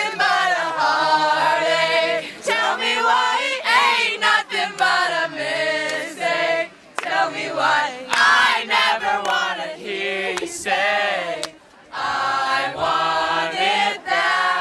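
A group of voices singing together in sustained, sliding phrases.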